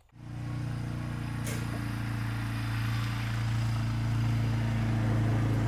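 Vehicle engine running steadily at idle with a low, even hum, starting abruptly and growing slightly louder toward the end.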